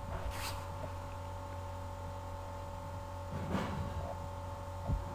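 A steady low electrical hum with a few faint steady tones above it, broken by a few soft short noises about half a second in, around three and a half seconds in and near the end.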